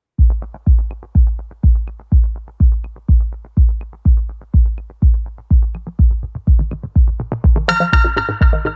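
Electronic background music: a steady four-on-the-floor kick drum at about two beats a second, with bright synth layers coming in near the end.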